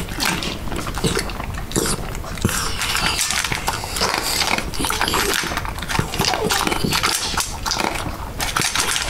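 A dog eating eagerly from a stainless steel bowl: a fast, irregular run of chewing and crunching, close up.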